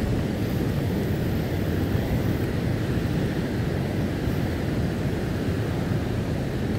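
Floodwater rushing over a lake's dam spillway, swollen after heavy rain: a steady, unbroken rushing noise, strongest in the low pitches.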